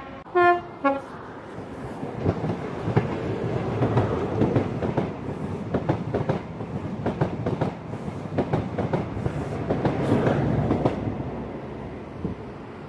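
A train horn sounds two short blasts. Then a train passes with a steady rumble and its wheels clicking over the rail joints, loudest around four and ten seconds in.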